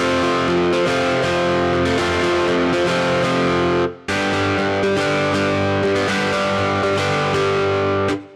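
Software synthesizer preset demo: sustained chords in two phrases of about four seconds each, each cutting off sharply.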